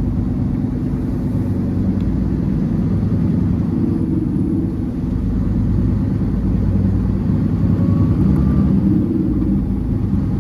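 Semi truck under way, heard from inside the cab: the diesel engine drones steadily with low road rumble.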